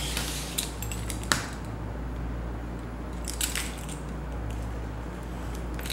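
A few light taps and scrapes from a craft knife and metal ruler on a cutting mat as scrapbook paper is cut, the sharpest tap about a second in. Underneath runs a steady low hum.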